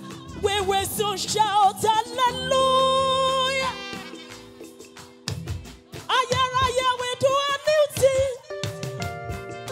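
Gospel choir singing with microphones, voices wavering with vibrato and holding one long note about two seconds in, with steady instrumental chords coming in near the end.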